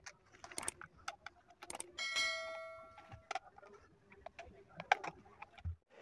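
Quiet clicks and taps of hands and a screwdriver working on a plastic hair dryer casing as its screws are fitted, with one metallic ring about two seconds in that fades over about a second.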